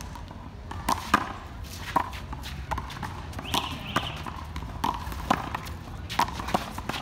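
A rubber handball being slapped by hand and smacking off the concrete wall and court during a rally: a string of sharp, irregular slaps, with the players' running footsteps between them.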